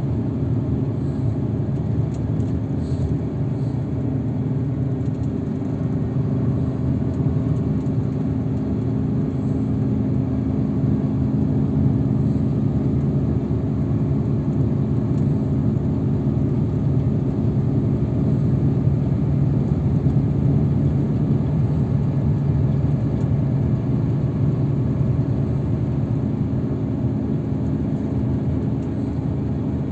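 Road vehicle's engine and road noise heard from inside the cabin while driving: a steady low rumble with an even engine hum.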